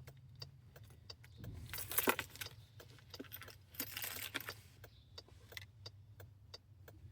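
Car keys jangling and clicking as they are handled, with two louder rattles about two and four seconds in, over the steady low hum of the car's engine running.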